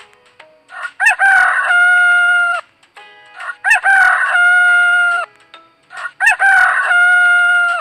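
Rooster crowing three times in a row. Each crow is a broken cock-a-doodle-doo that ends on a long held note.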